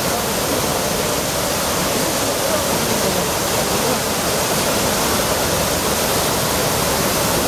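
Trevi Fountain's cascades pouring over the carved rock into the basin: a steady, unbroken rush of falling and splashing water.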